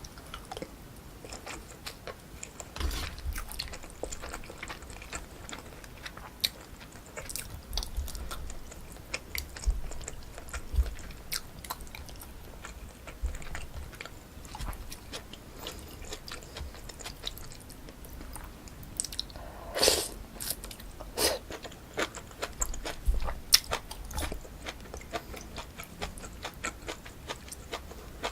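Close-miked chewing and biting of pork kimchi stew with rice and fried egg: many small wet clicks and crunches in an uneven rhythm, with a louder, longer burst of noise about two-thirds of the way through.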